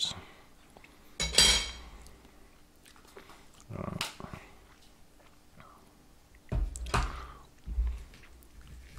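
A few separate clatters and knocks of tableware: a metal spoon and fork against a ceramic plate, and a plastic mustard tub's lid being pressed shut and the tub set down on the table.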